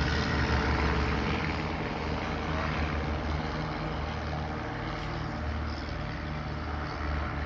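Propeller-driven piston aerobatic aircraft of a five-ship display team droning as the formation breaks apart. The engine sound slowly fades.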